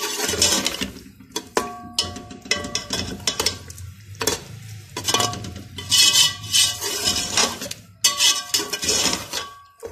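Long metal spoon stirring and scraping mutton in a thick yogurt masala around a metal pressure cooker pot, about one stroke a second, the pot ringing with each scrape.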